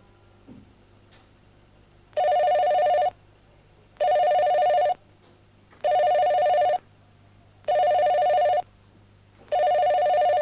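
Telephone ringing five times. Each ring lasts just under a second, with a pause of about a second between rings; the first comes about two seconds in.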